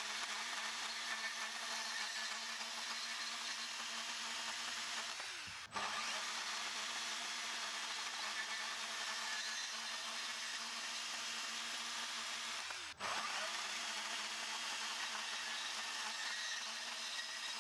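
RIDGID 18V cordless compact band saw running steadily and cutting through black steel pipe: an even motor whine with the blade grinding through the metal. The sound cuts out for a moment twice.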